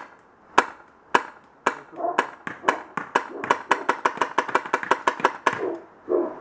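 Tippmann X7 Phenom paintball marker being fired. A few single shots about half a second apart are followed by a fast string of roughly five or six shots a second, which stops about five and a half seconds in.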